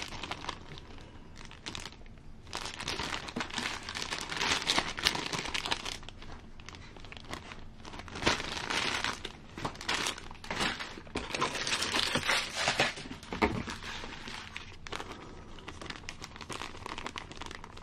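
Clear plastic zip bags crinkling in uneven bursts as they are handled and turned over, with rigid 3D-printed parts inside.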